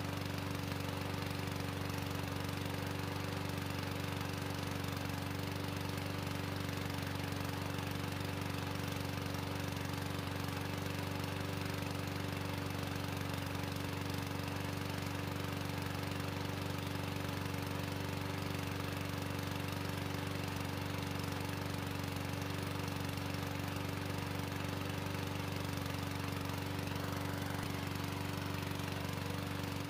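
A push lawn mower's small single-cylinder engine runs steadily at an even speed while burning gasoline mixed with black powder.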